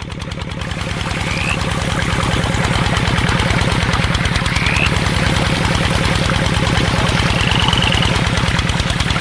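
Tractor engine idling with a rapid, even chugging beat, fading in over the first second and then running steadily.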